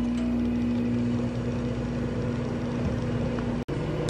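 Microwave oven running with a steady hum. It cuts off for an instant about three and a half seconds in, then hums on at a lower pitch.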